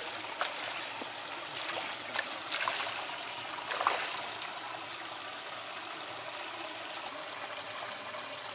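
Steady trickling, running water at the pond, with a few short splashes. The strongest splash comes just before four seconds in, as a hooked fish thrashes at the surface by a landing net.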